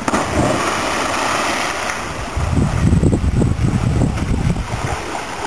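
River water splashing as people plunge in from a bridge and surface, mixed with a low rumble of wind buffeting the microphone that grows louder about halfway through.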